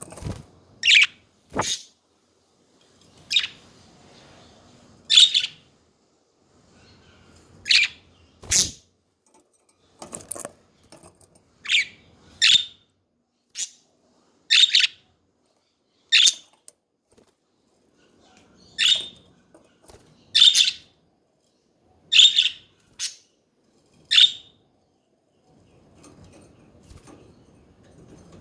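Pet budgerigars chirping: short, sharp calls one after another, roughly one a second with brief gaps, falling quiet a few seconds before the end.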